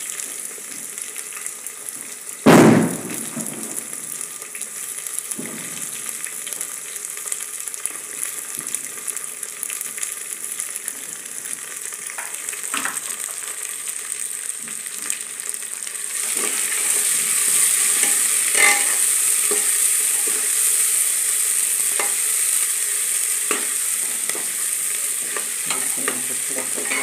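Chopped vegetables sizzling in hot oil in an aluminium pressure cooker pot, with one loud thump about two and a half seconds in as green chillies and tomatoes are tipped in from a steel plate. The sizzle grows louder from about sixteen seconds in, with scattered clinks of a spoon against the pot as it is stirred.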